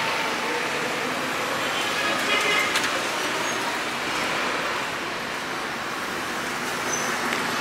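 City street traffic noise: a steady hum of passing vehicles.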